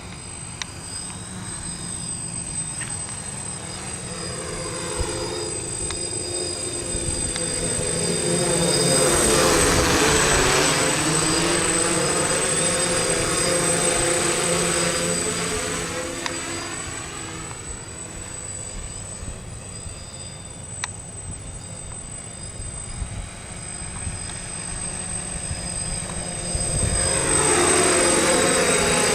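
DJI F550 six-rotor hexacopter flying, its motors and propellers making a steady buzzing drone. The sound swells and sweeps as it passes close about ten seconds in, and again near the end. Its motors have bad bearings, which the uploader blames for its crash.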